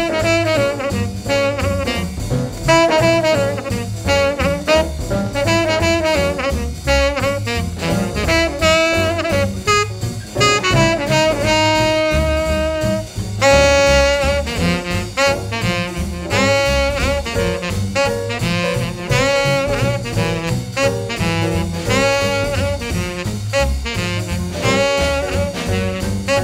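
Upbeat jazz music with saxophone and brass over a steady swing beat, with a long held note about halfway through.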